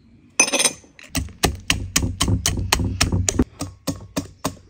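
Wire whisk beating egg and sugar batter in a glass bowl, clicking against the glass in a quick even rhythm of about six strokes a second. For the first couple of seconds there is a dull low knock under the strokes. A short rustle comes about half a second in.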